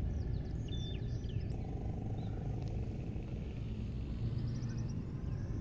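Riverbank ambience: a steady low rumble with a few faint, short bird chirps in the first second and a half and a brief high trill about three and a half seconds in.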